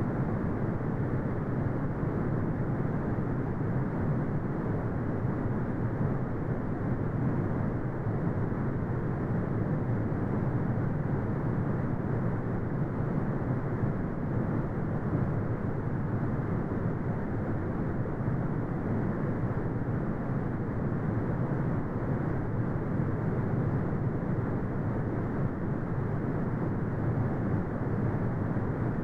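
Steady brown noise: a deep, even rumbling hiss with most of its energy low down and nothing above the upper midrange, unchanging throughout.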